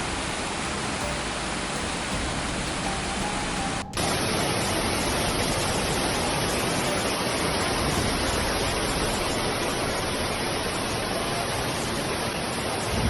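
Rushing floodwater: a steady, loud roar of water noise, broken by a short drop-out about four seconds in, then slightly louder.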